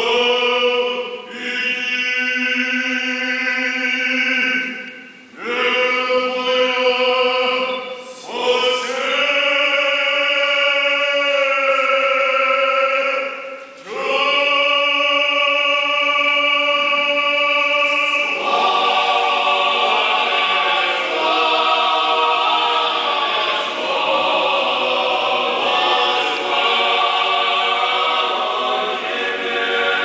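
Orthodox church choir singing a liturgical chant in long held phrases, with short breaks between them. About two-thirds of the way in the harmony fills out with more voices.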